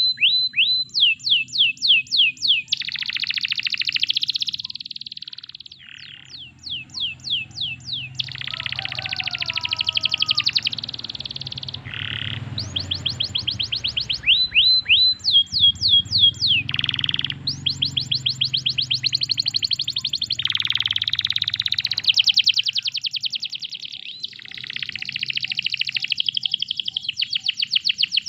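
Domestic canary singing a long continuous song of rapid trills. Each trill is a fast run of repeated falling whistled notes, and the trills alternate with denser buzzing rolls, with barely a pause between phrases.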